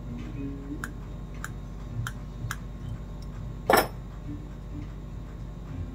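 Light clicks and taps of small wooden trophy parts being handled, with one sharper clack just past the middle, over a steady low hum.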